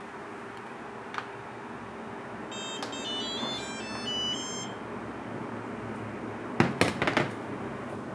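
Radio-control transmitter's buzzer playing a quick run of high beeps at changing pitches, like a power-on tune, about a third of the way in. Near the end come a few sharp clicks and knocks as the transmitter is handled and set down, over a steady low hum.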